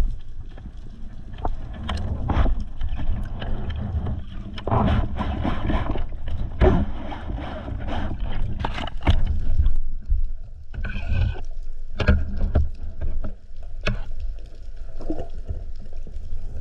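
Water sloshing and gurgling around the camera, with a constant low rumble and many scattered clicks and knocks.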